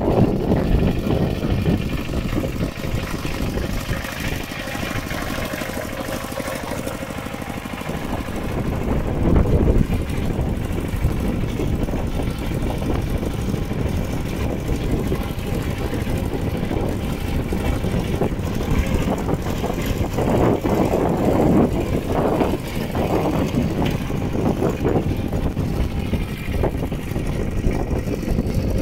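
Single-cylinder diesel engine of a two-wheel walking tractor running steadily under load as it drags a disc harrow and leveling board through flooded paddy mud.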